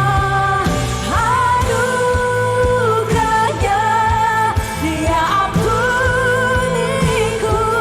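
Indonesian worship song, sung with band accompaniment: a voice holds long notes with vibrato and slides between them over a steady bass.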